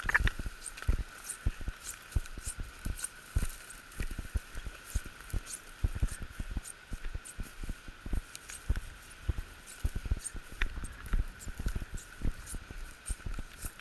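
Irregular soft thuds and rustling from people moving about and handling gear, over a faint steady high hum.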